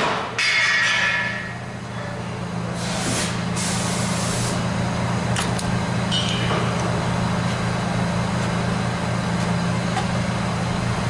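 MIG welder arc crackling and hissing on the rusted exhaust joint for about the first second and a half, then stopping. A steady low hum runs on underneath, with two short hissing bursts about three and four seconds in.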